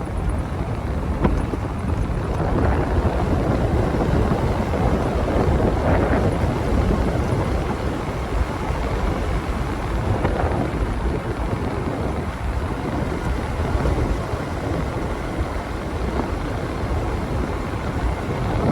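Wind rushing over the microphone on a moving motorbike, with the bike's engine and road noise running steadily underneath.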